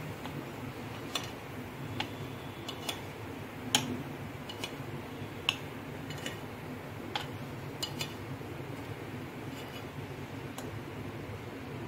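About a dozen light, irregularly spaced clicks of a metal spoon against the appe pan and plate as the cooked appe are lifted out, over a low steady hum.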